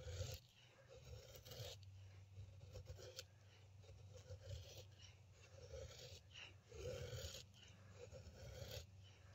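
Faint, repeated scraping strokes of the Odenwolf W machete's D2 steel edge shaving feather curls off a stick of wood.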